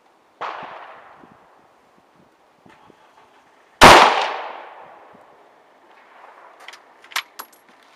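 A single loud shot from a CZ 750 bolt-action rifle in 7.62 NATO, about four seconds in, with a long ringing tail that dies away over about a second. A quieter shot sounds about half a second in, and a few sharp clicks follow near the end.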